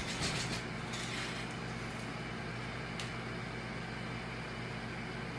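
Steady low hum of room tone, with faint rustling in the first second or so and a single short click about three seconds in.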